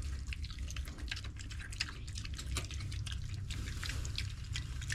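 Idaho Pasture piglets chewing treats they have just been given: a steady run of small, wet clicks and crunches.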